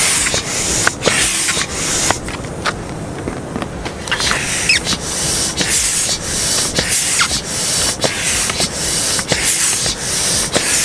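Intex hand pump being worked, each stroke pushing a rush of air through the hose into the inflatable boat's inner air chamber: a rhythmic hiss, about two strokes a second, with a brief lull a couple of seconds in.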